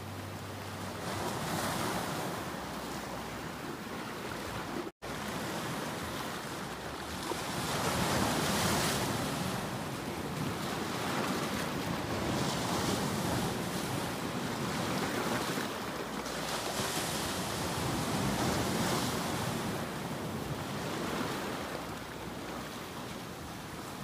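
Sea surf breaking and washing over shoreline rocks, swelling and easing in surges every few seconds. There is a momentary dropout about five seconds in.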